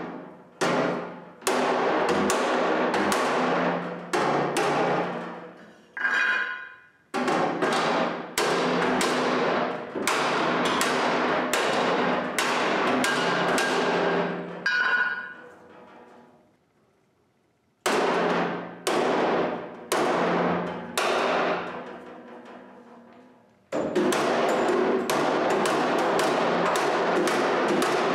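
Steel hammer blows on the dented rear fender and wheel-well sheet metal of a 1943 Willys MB Jeep, backed by a piece of channel iron used as a dolly, to straighten the panel flat. The blows come in quick runs of about two or three a second, each ringing briefly, with a few short pauses between runs.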